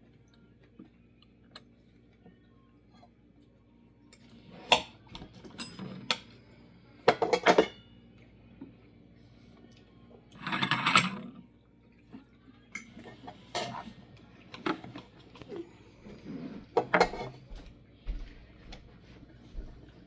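Cutlery clinking and scraping on a plate during a meal, in scattered short sounds with quiet gaps between them, and one longer scrape about eleven seconds in.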